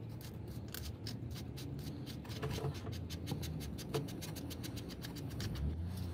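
Faint, irregular scratchy clicks of a Ford Festiva's speedometer cable fitting being unscrewed by hand from the transmission.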